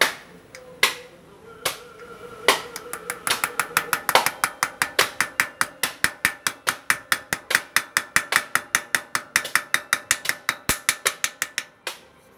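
Hammer tapping a 6000 sealed ball bearing into a Raleigh rear hub shell, metal on metal. A few single blows about a second apart, then a fast, even run of light taps, about five a second, that stops shortly before the end.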